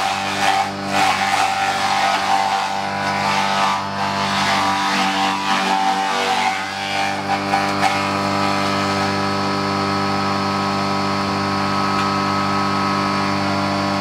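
Motorized chopper running steadily as green vines are fed into it and shredded. The shredding noise is rough and uneven for the first half, and the machine runs more evenly from about halfway.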